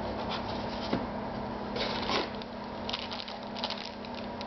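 Rustling and crinkling of packaging with small clicks as parts of a die-cast model crane are unpacked and handled, in clusters around two seconds in and again near the end.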